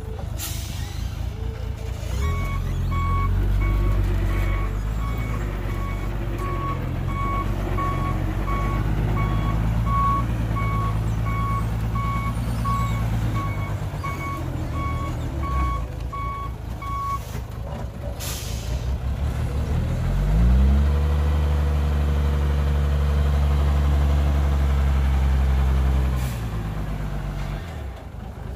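Dump truck reversing, its backup alarm beeping steadily for about fifteen seconds over the idling diesel engine, then a short air-brake hiss. The engine then revs up, holds high for several seconds and drops back.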